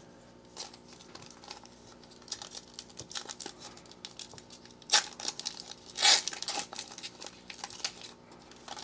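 A foil trading-card pack wrapper crinkling in the hands and being torn open, with two loud rips about five and six seconds in.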